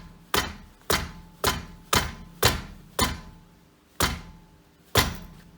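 Front brake caliper of a Volkswagen Golf 4 knocking: about eight sharp knocks, roughly two a second, with a longer gap near the end. The heavy new brake pads rattle in the caliper because the spring plate meant to hold them under tension is weak and loose.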